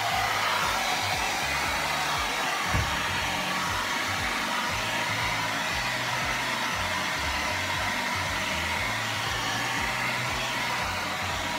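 Hand-held hair dryer blowing steadily, a constant rushing hiss while it is used to dry hair.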